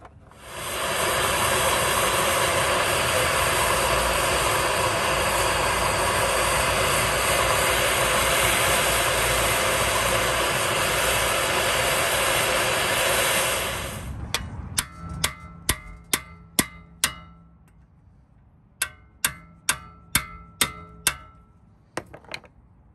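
Handheld gas torch burning with a steady hiss for about 13 seconds, heating a rusted screw in the brake rotor hub. Then two quick runs of hammer blows on a hand impact driver, about three a second with a short metallic ring after each, trying to break the seized screw loose.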